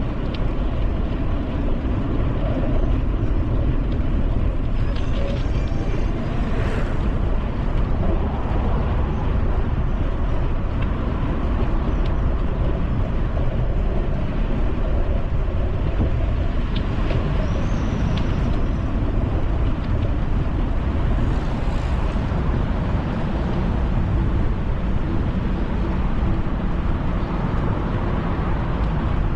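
Steady wind buffeting the microphone while cycling at speed, mixed with the hum of road traffic passing on the adjacent road.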